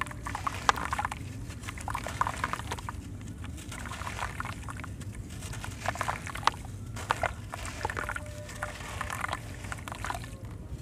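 Soft white sand-cement blocks crushed by hand under water: gritty crunching and crumbling with wet sand pouring and splashing back into the water, in repeated bursts every second or two with sharp cracks among them.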